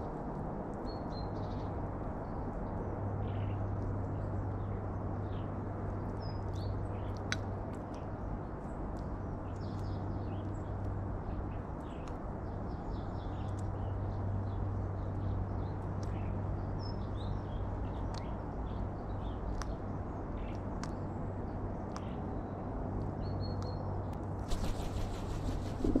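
Garden ambience: a steady low hum with small birds chirping now and then in the background, and a brief fluttering flurry near the end as the carrion crow takes off from the food tray.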